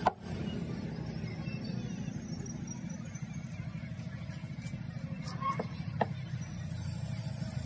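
A large knife chopping into a yellowfin tuna on a wooden block: one hard chop at the start, then two lighter hits about half a second apart later on. Under it runs a steady low rumble, like an engine or traffic.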